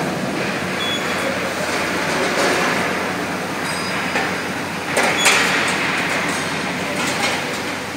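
Open-section cold roll forming line and its hydraulic power pack running: a steady mechanical din with a low hum, and a couple of sharp metallic knocks about five seconds in.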